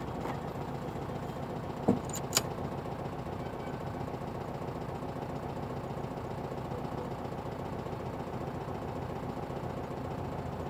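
Air-cooled flat-four engine of a VW Beetle idling steadily. Two sharp knocks come about half a second apart around two seconds in.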